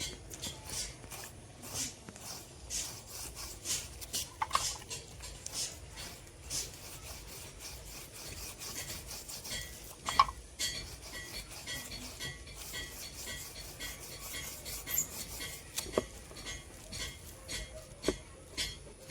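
A steel knife blade being sharpened or dressed by hand: quick, repeated rasping strokes of metal on an abrasive, about two or three a second, with an occasional sharper scrape or click.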